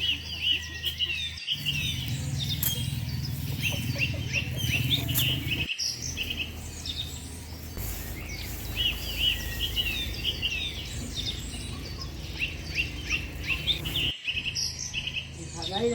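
Small birds chirping: many short, quick notes repeated in clusters throughout, over a steady low background noise. The sound breaks off abruptly for a moment a few times.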